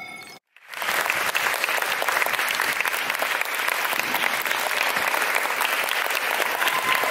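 Chiming music cuts off suddenly, and after a moment of silence an audience breaks into applause, which keeps on steadily.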